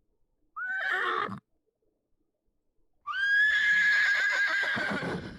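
AI-generated horse whinny sound effects played back. A short whinny about half a second in, then a longer one about three seconds in that rises at the start and holds a steady pitch for about two seconds.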